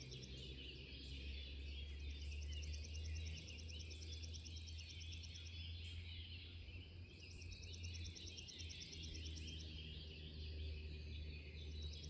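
Dawn chorus of many songbirds calling at once, with a fast, high-pitched trill that repeats in long runs, over a steady low hum.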